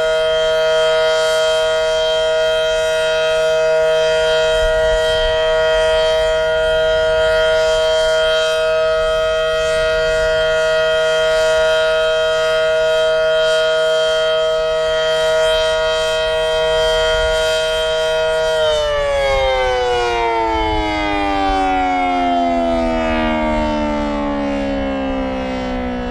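Federal Signal SD-10 single-phase rotating outdoor warning siren holding the steady chord of its one-minute alert. About eighteen seconds in it shuts off and winds down, the pitch falling steadily as the rotor slows.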